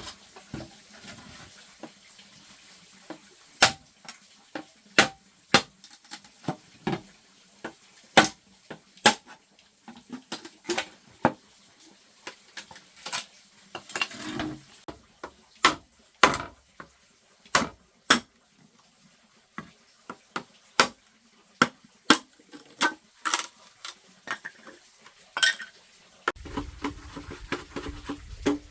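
A series of sharp, separate knocks and clinks of hard objects, irregular at roughly one a second, some ringing briefly. A low steady hum comes in near the end.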